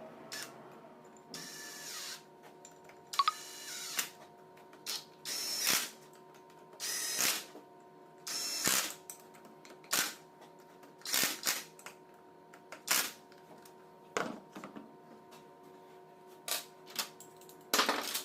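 Tools and metal parts being worked on a starter motor under repair: irregular clicks, clinks and short scraping or whirring bursts, each under a second, over a steady faint hum.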